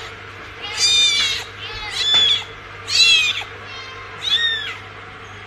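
A newborn kitten mewing: four high, shrill cries about a second apart, each rising then falling in pitch.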